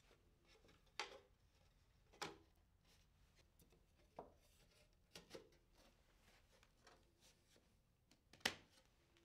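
Faint knocks and taps of red oak crate parts, slats and a side panel, being handled and set against each other on a workbench: about six light wooden knocks, the loudest near the end.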